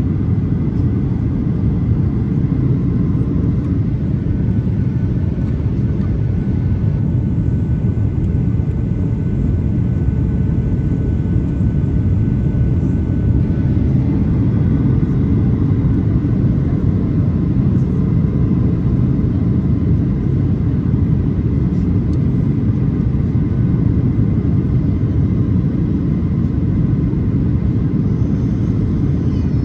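Steady low rumble of a Boeing 737 in flight: engine and airflow noise, unchanging throughout.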